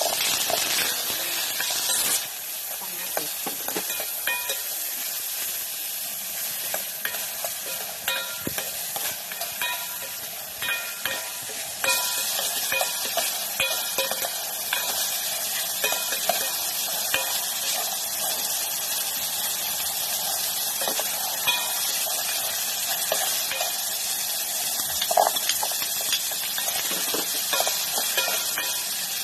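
Chopped tomato and onion sizzling in hot cooking oil in a pot, with a spatula stirring and scraping against the pot. The sizzle gets louder about twelve seconds in.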